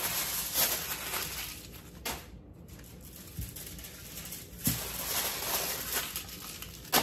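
Aluminium foil crinkling and rustling as potatoes are rolled up in it, with a few light knocks and a sharp click near the end.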